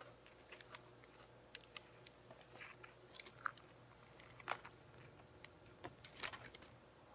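Faint close-up chewing and biting of a sub sandwich, with scattered short mouth clicks; the sharpest come about four and a half and six seconds in.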